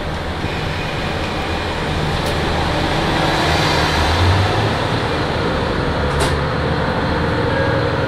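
KiHa 40 diesel railcar's engine running, growing louder as the railcar starts to pull away from the station.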